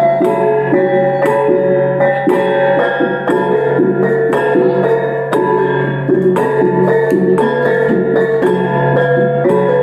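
Iban brass gong music (taboh): tuned brass gongs struck in a quick, even run of ringing notes over a steady low hum.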